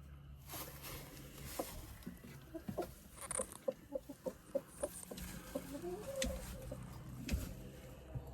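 Hen clucking: a quick run of short clucks, about four a second, in the middle, followed by a longer drawn-out call.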